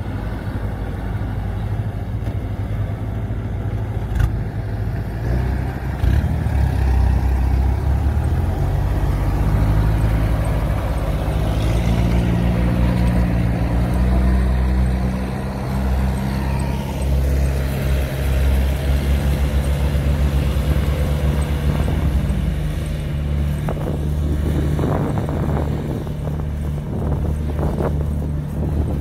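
Kubota DC-105X rice combine harvester's diesel engine and machinery running steadily at close range. The engine note rises about twelve seconds in, and a few short rattles come near the end.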